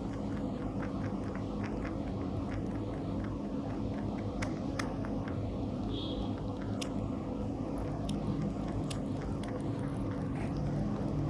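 Rabbits chewing and biting mango, a scatter of small irregular clicks, over a steady low background hum.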